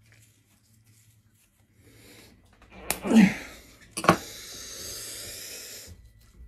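Seaguar fluorocarbon fishing line, pulled by hand to its breaking point, snaps with a sharp crack about three seconds in. The man straining on it lets out a loud exhale that falls in pitch. A second sharp click follows about a second later, then a breathy hiss for nearly two seconds.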